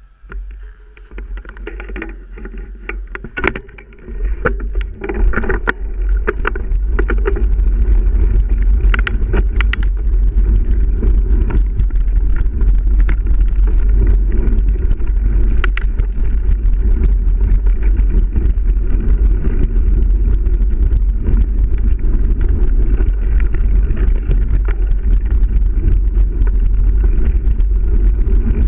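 Mountain bike ridden on a dirt trail: a steady low rumble of wind on the microphone and tyres, building over the first several seconds as the bike gathers speed and then holding. Sharp clicks and rattles from the bike come through, mostly in the first few seconds.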